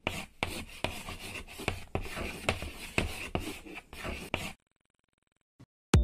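Chalk scratching across a board in quick, rough strokes, a sketching sound effect that stops about four and a half seconds in. Music starts just at the end.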